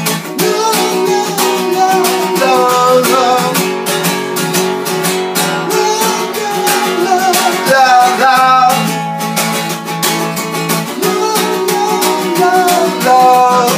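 Acoustic guitar strummed steadily through a break between sung lines of an indie-folk song, with a wavering melody line over the chords.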